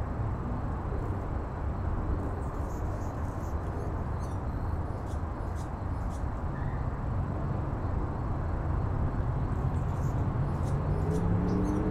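Steady low outdoor rumble with faint, scattered high chirps over it. Near the end a pitched engine drone comes in and rises as it approaches.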